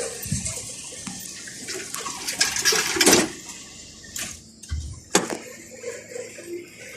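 Cabin noise of a 71-605A (KTM-5A) tram: a rushing, rattling haze broken by several sharp knocks and clacks, loudest about three seconds in, with more near four and five seconds.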